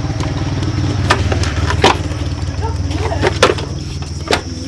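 Small motorbike engine idling steadily, with four sharp clicks and knocks over it.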